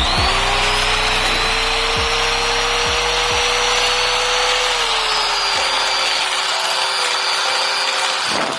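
Electric mixer motor running steadily as it beats cookie dough, its whine picking up speed at the start and dropping a little about five seconds in.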